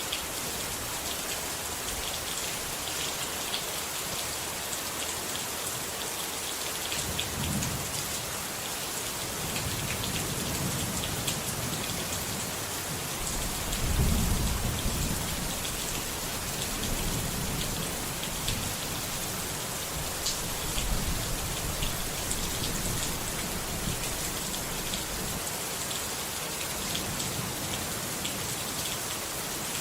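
Steady rain hissing, with low rolls of thunder coming and going, the loudest about halfway through.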